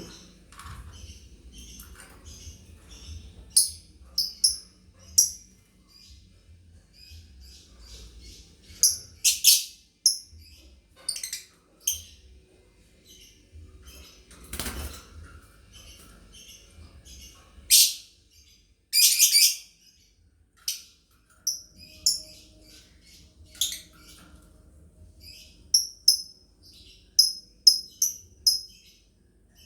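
Lovebirds chirping: many short, high-pitched chirps at an uneven pace, with louder shrill bursts every few seconds.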